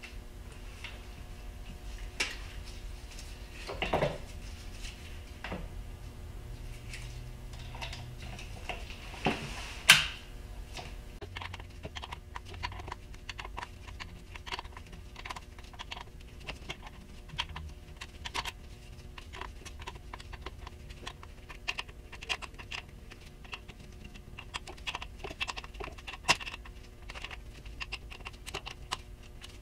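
Hand screwdriver tightening the screws that hold a power feed to a milling machine table, giving a long run of small quick irregular clicks. A few louder metal knocks come before it, the sharpest about ten seconds in.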